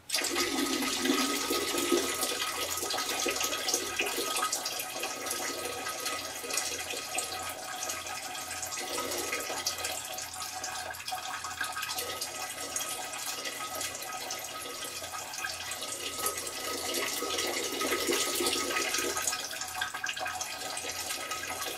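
Steady hiss of running water in a bathroom, cutting in abruptly, with a faint whine running through it.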